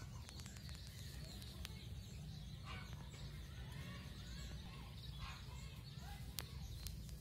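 Scattered short animal calls, one every couple of seconds, over a steady low rumble, with a few sharp clicks.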